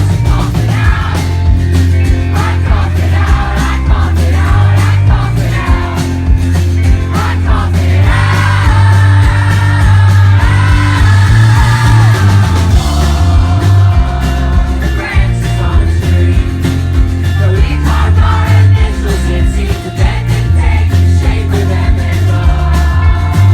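Live rock band playing loud, bass-heavy music with drums and a voice singing. The singing stands out most clearly from about eight to thirteen seconds in.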